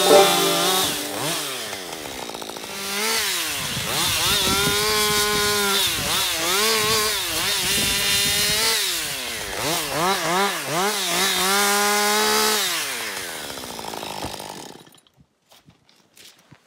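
Husqvarna 545 two-stroke chainsaw cutting apple wood, its engine pitch rising and falling again and again through the cuts, then cutting off suddenly near the end.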